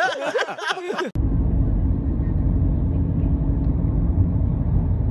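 About a second of film dialogue, then an abrupt cut to a steady low rumble of engine and road noise heard inside the cabin of a Mercedes car on the move.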